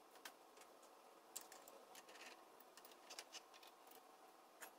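Near silence: faint room tone with a handful of sharp, faint clicks at irregular intervals.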